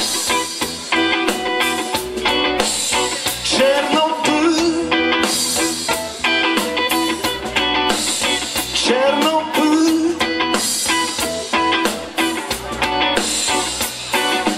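Live rock band playing an instrumental stretch: an electric guitar riff with sliding, bending notes over bass, drums and keyboards, the phrase repeating about every four to five seconds on a steady drum beat.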